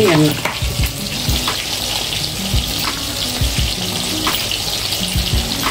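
Cooking oil sizzling steadily in a pan, heated for a South Indian tempering (thalippu), with a few faint ticks.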